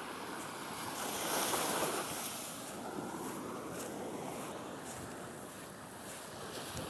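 Ocean surf washing in on the shore, a steady rush of water that swells about a second in.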